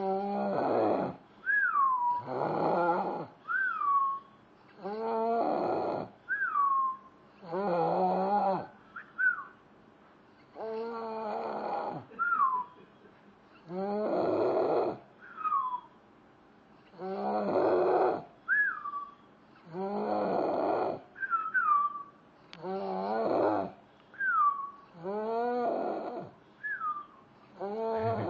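A sleeping man snoring, with a snore about every two and a half seconds. Each snore is followed by a short whistle that falls in pitch.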